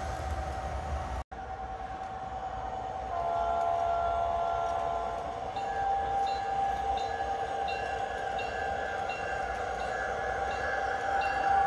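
Sound system of O-scale model diesel locomotives: a multi-note horn sounds for a couple of seconds, then a bell rings over a steady engine tone. The sound cuts out for an instant about a second in.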